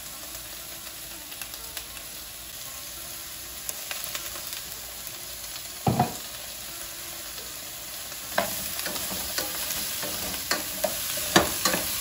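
Chopped zucchini frying in oil in a pan, a steady soft sizzle. There is a single thump about halfway through, and from about two-thirds in a wooden spatula stirs the pieces, knocking and scraping against the pan.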